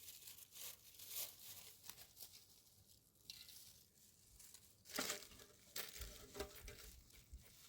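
Faint rustling and crinkling with scattered light clicks, and a louder rustle about five seconds in.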